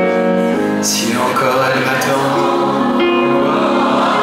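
Live piano accompaniment with a crowd of voices singing along in unison, sounding like a choir. About a second in there is a brief rush of noise.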